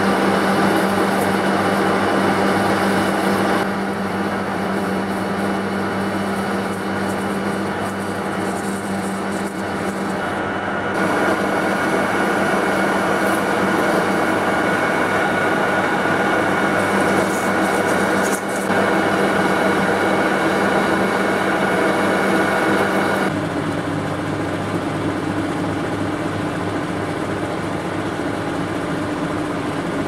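Metal lathe running and cutting grooves into a thick steel bar under dripping coolant: a steady mechanical hum with several fixed tones and a noisy cutting texture. The sound shifts in character at about 4, 11 and 23 seconds.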